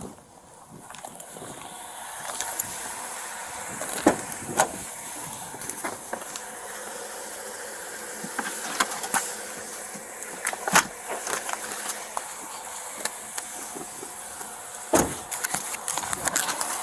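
Steady hissing background noise through a body-worn camera's microphone, broken by a few sharp knocks or clicks, the loudest about four, eleven and fifteen seconds in.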